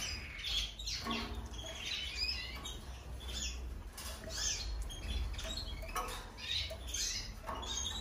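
Canaries chirping and twittering: many short, high calls scattered irregularly, over a low steady hum.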